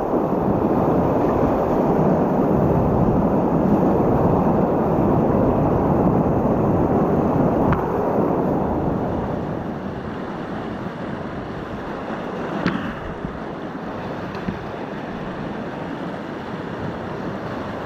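Rushing whitewater of a river rapid around a kayak, louder for the first half and easing off after the middle, with two brief sharp clicks.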